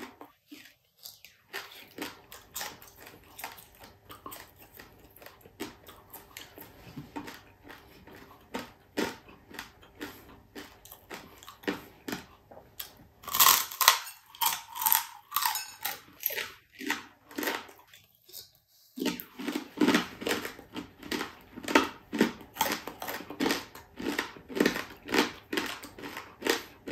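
Close crunching and chewing of crispy deep-fried boneless chicken-feet chicharon, a steady run of crunches, with a louder stretch of biting and crunching about halfway through.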